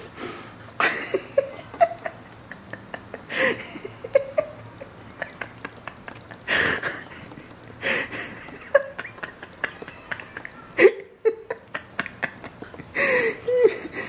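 Cats giving short meows and chirps while batting at a foxtail grass stalk, with a cluster of calls near the end. Scattered soft taps and rustles come from paws and the grass stem.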